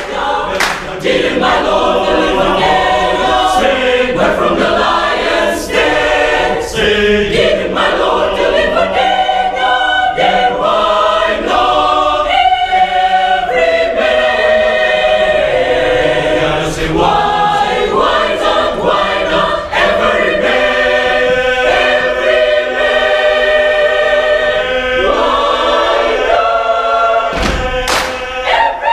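Mixed youth choir singing an upbeat spiritual a cappella, with a few sharp hand claps.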